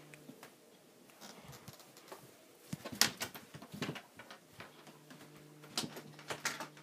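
Irregular light taps and knocks on a wooden floor, the loudest about three seconds in and a cluster near the end, over a faint steady low hum.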